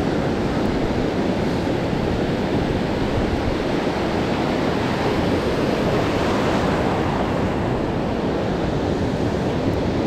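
Ocean surf breaking and foam washing through the shallows, a steady rush of water, with wind buffeting the microphone.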